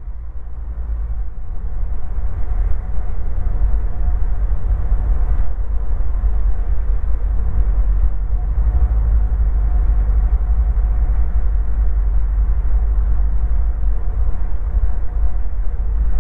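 Light aircraft's engine and propeller at reduced approach power, with airflow, heard inside the cockpit: a steady low rumble with a faint steady hum above it, growing louder over the first few seconds and then holding.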